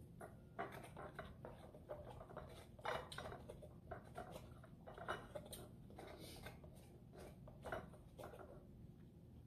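A metal spoon scraping the soft meat out of the inside of a young coconut, in a string of short, faint, irregular scrapes.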